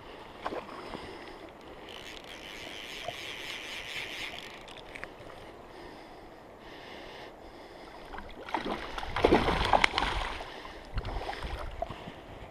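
Steady rush of river current, with a few clicks and scrapes from handling the fly rod, line and reel. About nine seconds in there is a louder rush of noise lasting a couple of seconds.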